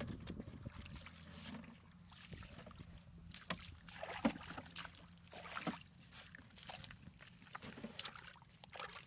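Shallow muddy water splashing and sloshing in irregular bursts as a person wades barefoot and gropes with his hands through a flooded ditch.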